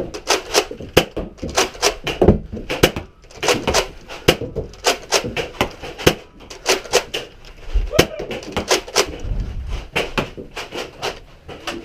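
Nerf battle action: a rapid, uneven series of sharp clacks and knocks, often several a second, with a few heavier thumps about eight to nine seconds in.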